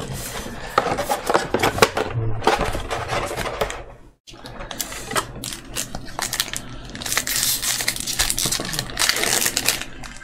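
Trading-card booster pack wrappers crinkling and cards being handled: a dense run of small clicks and crackles, broken once by a brief drop to silence about four seconds in.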